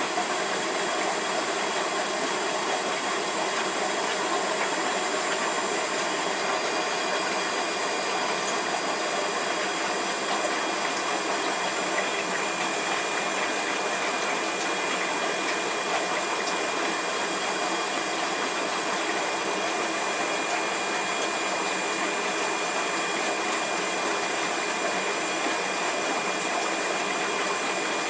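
Steady rushing water noise of aquarium filtration running, with a few faint steady high-pitched tones over it.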